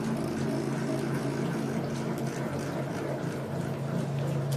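Steady hum of a small electric motor driving a shell-wrapping machine, running continuously, a little louder near the end.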